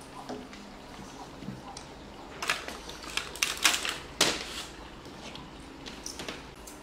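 Plastic clamshell strawberry box being handled by a baby macaque on a wooden table. It makes a quick, irregular run of clicks and light knocks about halfway through, then a few scattered ticks.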